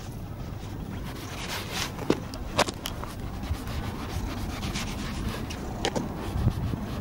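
A cat's fur rubbing and brushing against the phone's microphone, with a few sharp knocks about two, two and a half and six seconds in, over a low rumble on the microphone.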